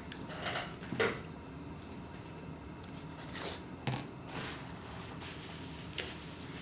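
A few scattered light clicks and knocks over a quiet room background, the sharpest about four seconds in.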